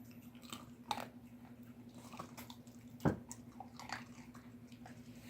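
German shepherd puppies gnawing on large cow bones: irregular crunching and scraping of teeth on bone, with a sharp crack about a second in and a louder one about three seconds in.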